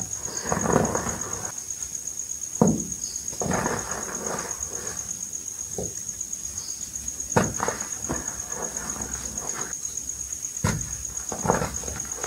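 Hands crushing and crumbling re-formed gym chalk balls into loose powder, in irregular soft crunching, rubbing bursts. Three sharp cracks stand out, about a third of the way in, past the halfway point, and near the end. A faint steady high whine runs underneath.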